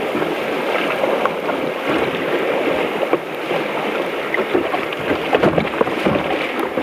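River whitewater rushing and splashing against the bow of a sit-on-top kayak, with spray and wind hitting the bow-mounted camera's microphone. A run of sharper, louder splashes comes about five to six and a half seconds in.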